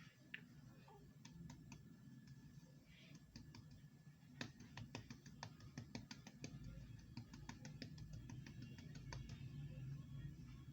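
Faint, irregular clicks and light taps, coming thicker from a few seconds in, over a low steady hum.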